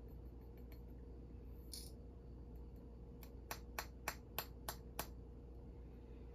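Six light, sharp taps in quick succession, about three a second, from a small gold vial being tapped to knock its gold out for weighing, after a brief soft hiss.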